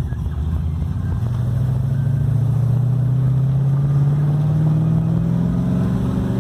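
1979 Holden VB Commodore's engine and exhaust accelerating under load. The pitch climbs steadily from about a second in and gets louder.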